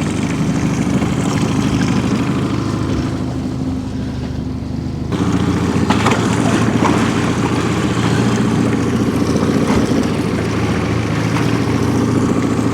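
Fishing boat's engine running steadily at trolling speed, a little louder from about five seconds in.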